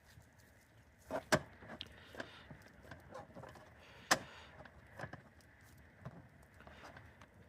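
A series of irregular clicks and knocks, with two sharper, louder knocks about a second in and about four seconds in.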